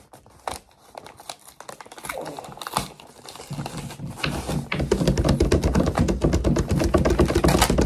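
A few scattered light taps and rustles, then from about four seconds in a fast, continuous drumroll of hands drumming on a tabletop, dense and loud.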